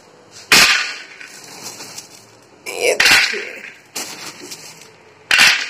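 Handfuls of dry soya chunks dropped into a steel bowl, rattling against the metal, with the plastic bag they come from rustling. Three loud, sudden bursts: about half a second in, around the middle, and near the end.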